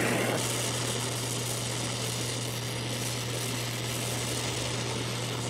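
Oxy-acetylene torch flame hissing steadily as it melts a small puddle to fusion-tack two steel strips together, over a steady low hum. The hiss drops a little less than half a second in.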